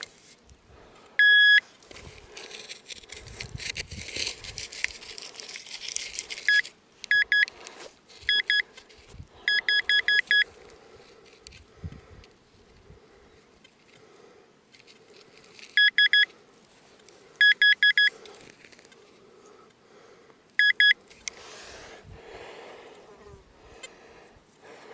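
Handheld metal-detecting pinpointer beeping in short runs of rapid beeps as it is swept through the dug soil to locate the buried target, between soft scraping and rustling of hands in loose earth.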